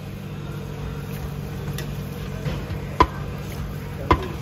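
A metal spoon clinks sharply twice, about a second apart, against the bowl and the steel pot while braised pork trotters are spooned out. A steady low hum runs underneath.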